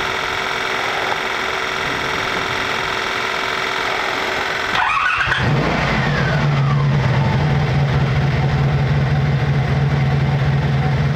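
A steady buzzing with fixed tones, then about five seconds in a 1985 Honda Magna 700's V4 engine starts and settles into a steady idle. The bike has a cheap aftermarket electric fuel pump that keeps pumping without building pressure, and the engine is not getting enough fuel.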